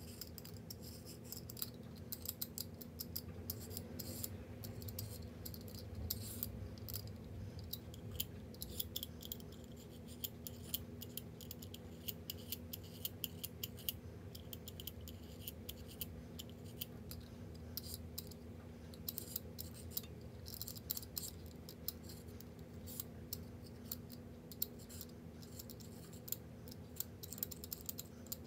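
Kitchen cooking sounds played at double speed: a rapid, irregular run of small clicks, taps and scrapes of utensils against cookware over a steady low hum.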